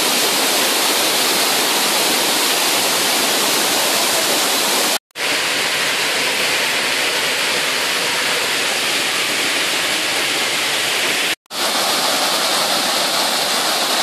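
Water rushing steadily over the rock ledges of a tiered waterfall, a loud even rush that cuts out for a moment twice, about five and eleven seconds in.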